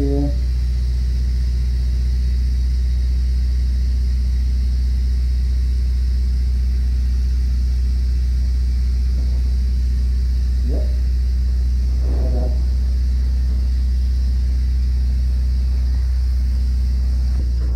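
Steady, loud low mechanical drone with a hiss above it. A few short high-pitched chirps come through briefly near the start and again about two-thirds of the way in.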